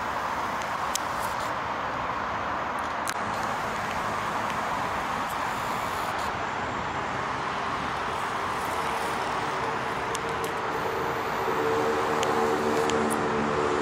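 Steady hum of distant city road traffic. Over the last few seconds a pitched, humming tone rises in loudness above it.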